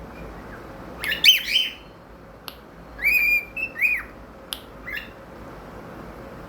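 Cockatiel whistling: short phrases of whistled notes that rise and fall in pitch, about a second in and again at three to four seconds, with a few brief chirps between.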